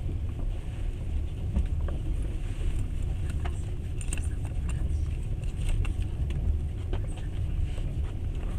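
Passenger train running steadily, heard from inside the carriage: a continuous low rumble from the wheels and track, with scattered small clicks and rattles.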